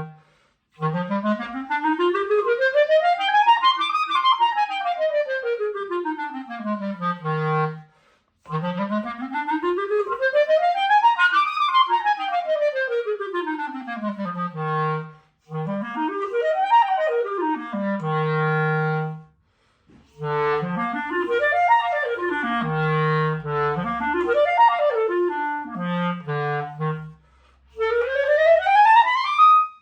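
Buffet R13 clarinet playing an F major scale, up and down across three octaves twice, then quicker runs and arpeggios up and down. There are short breaks for breath between phrases, and it breaks off partway through a rising run.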